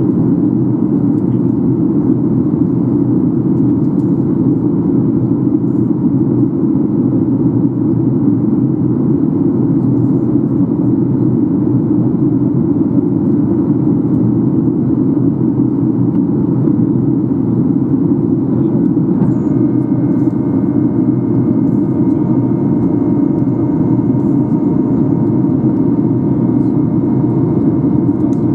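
Cabin noise of a Boeing 737-800 on approach: the steady rumble of its CFM56 engines and the airflow past the fuselage. About two-thirds of the way through, a set of steady whining tones comes in over the rumble and holds.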